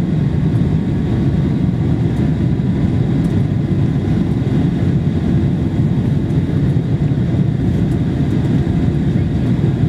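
Steady cabin roar inside a Boeing 747-400 climbing out after takeoff: the engines and the airflow over the fuselage make a dense low rumble with a few faint, steady high whines above it.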